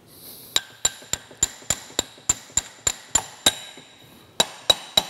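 Hammer blows on a brass punch driving at a stuck shaft in a cast-iron lathe tailstock: a quick run of about eleven ringing metallic strikes, about three a second, a pause of about a second, then three more. The shaft is not wanting to go.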